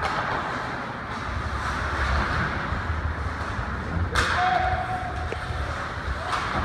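Ice hockey play in a rink: a steady rumble of skating and arena noise, with a sharp crack about four seconds in and a lighter knock near the end, from the puck and sticks striking the boards.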